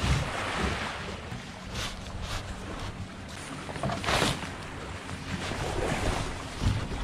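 Tarp rustling and crinkling as it is pulled and tucked over the edge of a small plastic boat hull, in several short bursts, the loudest a little after four seconds in. Wind buffets the microphone, with surf washing behind.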